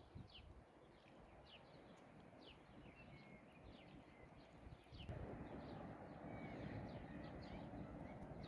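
Faint birdsong: small birds giving short, quick falling chirps, repeated many times, over a low steady outdoor hiss that grows louder about five seconds in.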